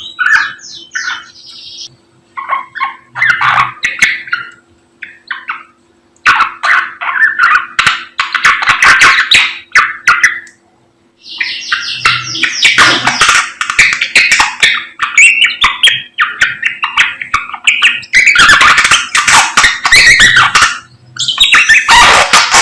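Samyong songbird singing loudly: runs of rapid, varied whistled and chattering phrases, the longer ones lasting several seconds, broken by short pauses. A faint steady hum lies underneath.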